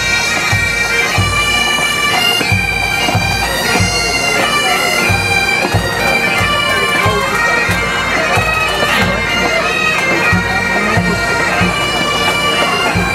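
Pipe band playing on the march: Highland bagpipes play a stepping tune over their steady drones, with the band's drums beating the time.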